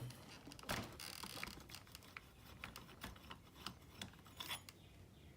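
Faint scattered clicks and light metallic scraping of a small wrench unscrewing the glow plug from a .18 nitro RC car engine.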